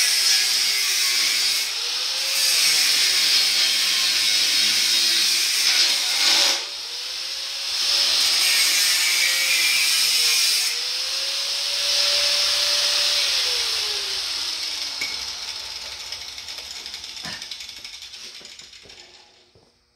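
Angle grinder with an abrasive cut-off wheel cutting through a steel S10 truck frame rail: a loud grinding hiss over the motor's whine, which wavers as the wheel bites. Near the end the grinder is switched off and winds down, its pitch falling and its sound fading out.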